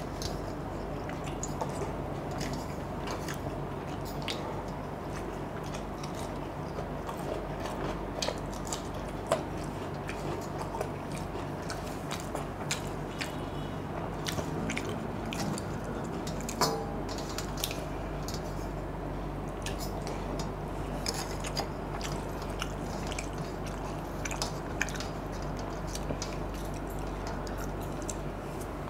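Mouth sounds of a man chewing panta bhat, watery fermented rice, eaten by hand, with scattered small clicks as his fingers stir and scoop the rice in a steel plate. A steady low hum underlies it.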